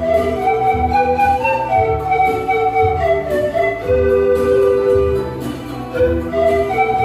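Pan flute ensemble playing a slow melody in several parts, long held notes moving together in harmony, over a steadily pulsing bass accompaniment.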